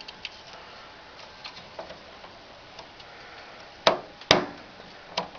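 A RAM stick being pushed into a motherboard memory slot: a few faint plastic ticks, then two sharp clicks close together about four seconds in and a smaller one just before the end, as the slot's retaining clips snap shut on the seated module.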